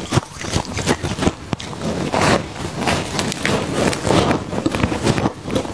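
Crunchy freezer frost ice chewed close to the microphone: a dense, irregular run of crunches. Loose frost crunches as a hand and a spoon scoop it up.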